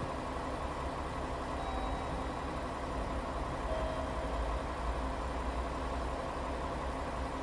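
KiHa 40 diesel railcar's engine idling steadily while the railcar stands at the platform.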